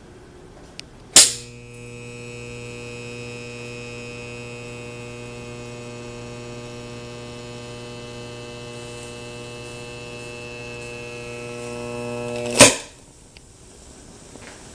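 An 8-pin relay with a 24-volt coil put on 120 volts: a sharp click as it pulls in, then a loud steady electrical buzz that grows a little louder over about eleven seconds. The buzz ends with a sharp snap. The overvoltage burns the coil up.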